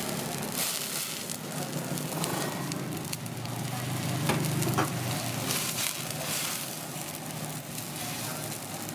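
Water at a rolling boil bubbling and hissing steadily in a wok as pieces of raw grouper fish blanch in it, with a couple of light knocks about halfway through.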